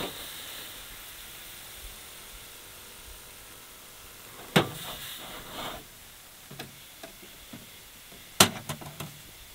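Cookware being handled over a steady background hiss. There is a sharp clack of the pot or a container about halfway through, and a louder one near the end, with a few lighter clicks and rattles around them.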